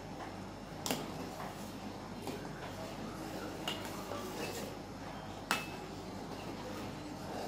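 A steel spoon stirring milk and makhana in a stainless steel pot, knocking against the pot's side with a few sharp metallic clinks: one about a second in and the loudest about two-thirds of the way through, over a steady low hum.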